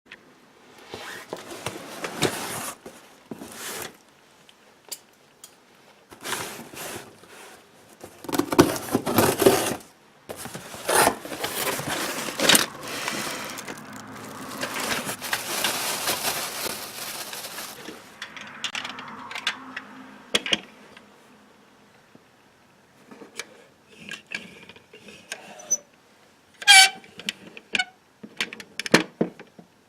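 Hands unpacking a batch of used die-cast toy cars: packaging rustling in irregular stretches, and scattered light clicks and taps as the small metal cars are handled and knock together, mostly near the end.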